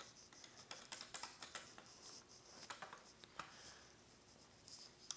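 Faint, scattered clicks and light rattles of plastic Lego bricks being handled and pressed together, most of them in the first three seconds or so.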